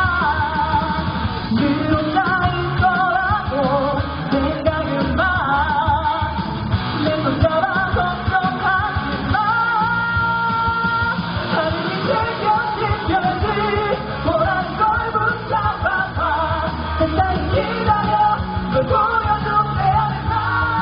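Male vocalist singing an upbeat pop song live into a handheld microphone, with band accompaniment and a steady beat.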